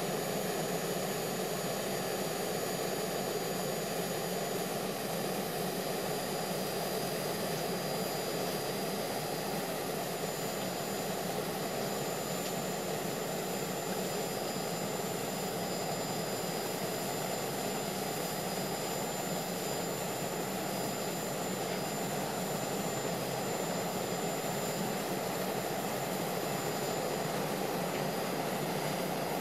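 Steady jet aircraft engine noise, an added sound effect: an even, unchanging rush with a faint high whine.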